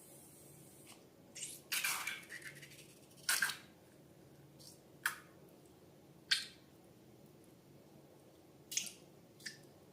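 Slime being handled: a run of short, sticky squelches and pops, about seven in all, with quiet between them.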